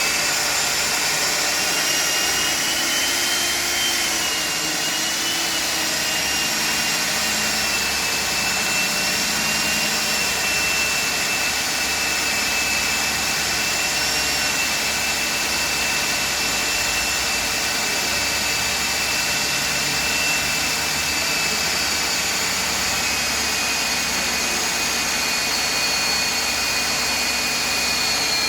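Hilti DD 160 diamond core drill running continuously while boring into concrete. Its motor gives a steady high whine that drifts slightly in pitch, over a constant grinding noise.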